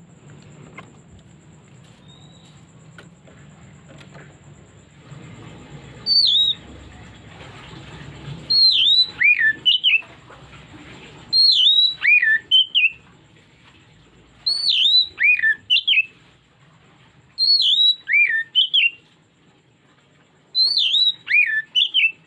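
Oriental magpie-robin (kacer) singing: loud phrases of a few swooping, whistled notes, repeated about every three seconds from about six seconds in.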